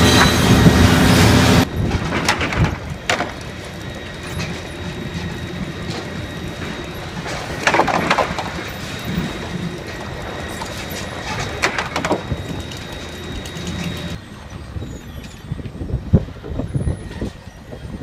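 Sawmill machinery: a loud, steady din of the lumber transfer decks and conveyors that cuts off suddenly under two seconds in. After that comes a quieter mechanical background of chain conveyors, broken by occasional sharp knocks and clatter of boards.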